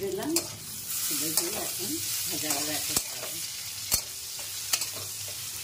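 Potato and pointed gourd slices sizzling in hot oil in a metal kadai as a flat metal spatula stirs and scrapes them, with a few sharp clicks of the spatula against the pan, the clearest about three and four seconds in.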